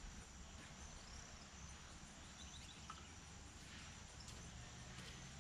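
Near silence: faint outdoor ambience with a steady, high insect chirping.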